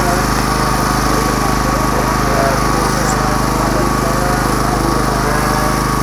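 A steady engine drone at an even pitch, with people talking in the background.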